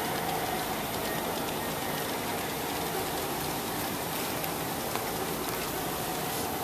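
G-scale model freight train rolling along its track and across a truss bridge, a steady noisy rolling sound.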